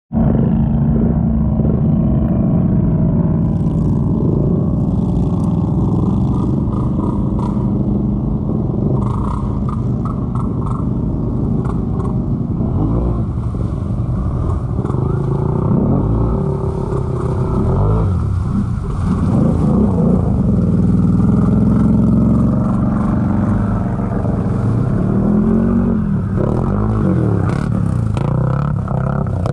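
ATV engines revving hard as the quads push through deep mud water, the pitch climbing and dropping several times, with mud churning and splashing.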